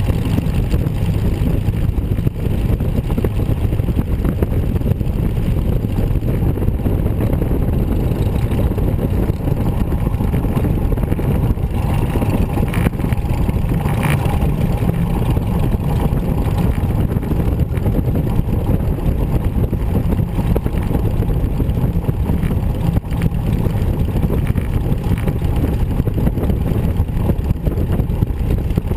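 Fournier light aircraft's single piston engine and propeller running steadily at low taxiing power, heard from inside the open cockpit.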